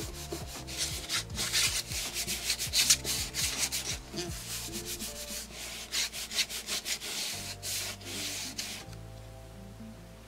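Palms rubbing back and forth over a sheet of paper laid on an inked lino block, burnishing it by hand to take the print. A quick run of dry brushing strokes that stops about nine seconds in.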